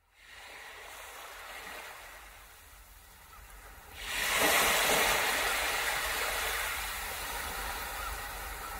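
Sea surf washing over a pebble and rock shore: a soft, steady wash at first, then a much louder rush of waves about four seconds in that slowly eases off.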